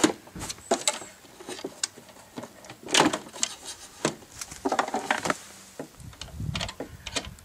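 The metal-cased transmitter unit of a WW2 German FuG 10 aircraft radio being slid and pushed into its wooden mounting frame: scraping against the wood with a series of knocks and clicks, and a dull thud near the end as it seats.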